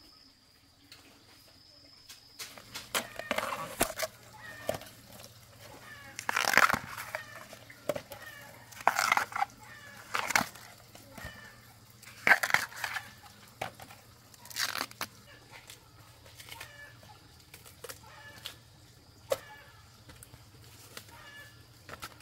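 Chickens squawking and clucking: about six loud, short calls a few seconds apart, fading to fainter ones later, over a low steady hum.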